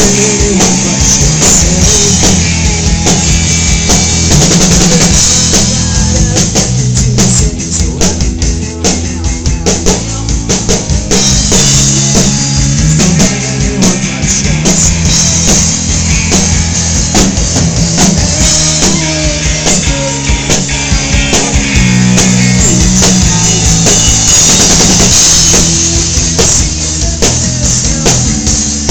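A rock band playing with a drum kit prominent, in a loud, poor-quality rehearsal recording.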